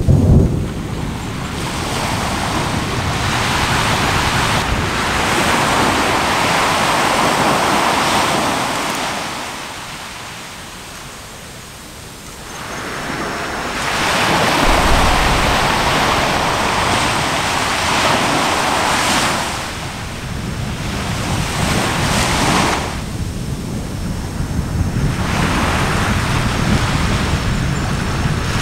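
Surf washing on the shore with wind on the microphone, a rushing noise that swells and fades in surges and drops to a lull about ten seconds in. There is a short low boom about fifteen seconds in.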